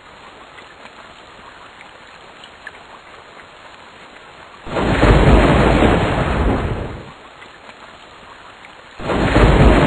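Steady rain falling, with two loud rolls of thunder about two seconds long each: one about five seconds in and another starting near the end.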